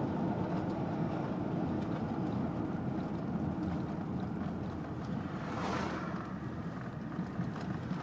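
Steady road and engine rumble heard from inside a moving minivan's cabin, with a brief whoosh about six seconds in.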